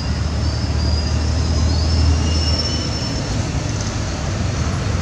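Low, steady rumble, like a motor vehicle's engine, loudest in the first two and a half seconds and then easing, over a steady background hiss. A few faint, thin high whistles come in the first three seconds.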